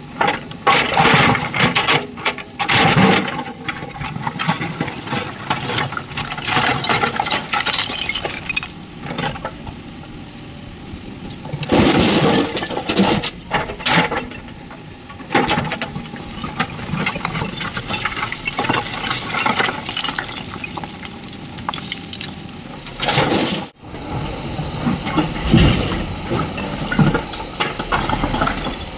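Loose earth and stones pouring and clattering into a tractor trolley as a backhoe loader dumps its bucket, in uneven rushing swells.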